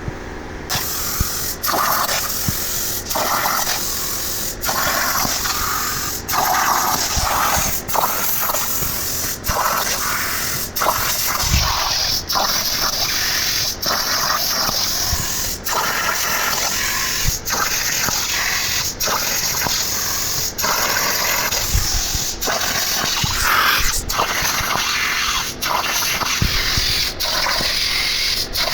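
CNC plasma cutter torch cutting metal: a steady loud hissing rush, broken by short regular dips a little under a second apart.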